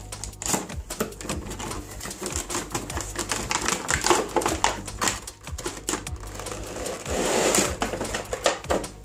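Cardboard box flaps being opened and a plastic-wrapped radio transmitter and its manual being handled, making a run of light clicks and taps. A louder rustle comes about seven seconds in.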